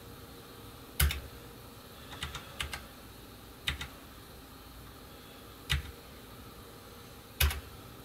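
Computer keyboard keys pressed one at a time, a few seconds apart, with a quick run of lighter taps about two seconds in.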